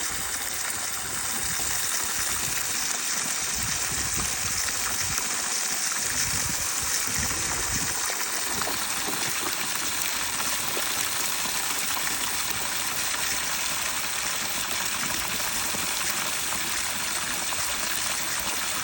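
Steady rush of running water, an even hiss with no separate splashes.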